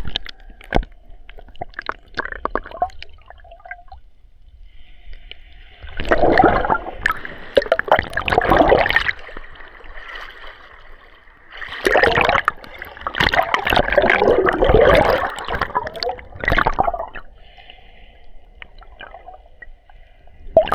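Seawater gurgling and sloshing around a waterproof action camera's plastic housing as it is dipped in the sea, with scattered clicks and two longer, louder rushes of water, about six and twelve seconds in.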